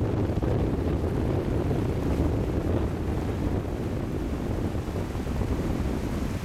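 Wind buffeting the microphone with a steady low rumble, over small waves washing in over shallow water onto a sandy beach.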